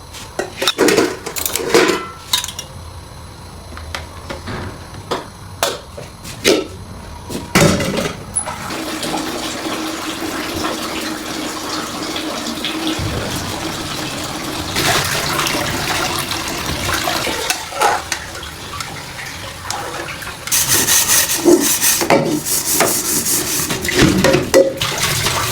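A few knocks and clatters of kitchen dishes, then water running steadily from a kitchen tap. The water becomes louder and splashier about twenty seconds in.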